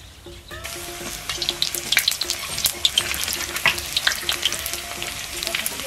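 Chunks of beef fat frying in hot rapeseed oil in a large wok, sizzling with many sharp crackles and pops as a ladle presses the fat down to render it out. The sizzle comes up about half a second in.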